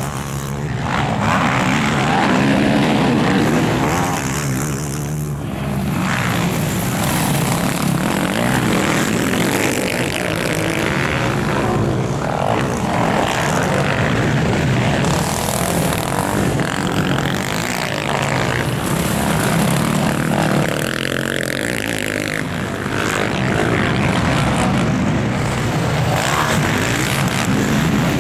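Several racing quad bikes' engines revving hard on a motocross track, layered into one continuous loud drone. The pitch keeps rising and falling as riders open and close the throttle.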